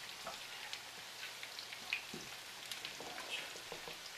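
Meatballs frying, a steady sizzle dotted with small, irregular crackles and pops.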